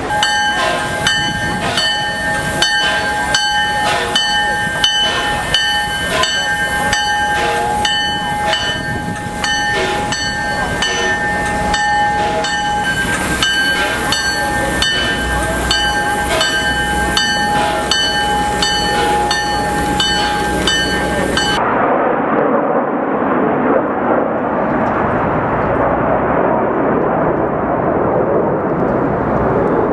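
Steam locomotive passing close by, its bell ringing in steady repeated strokes over the rumble of the train. About twenty seconds in, this cuts off abruptly to the even rushing noise of the Snowbirds' CT-114 Tutor jets flying over in formation.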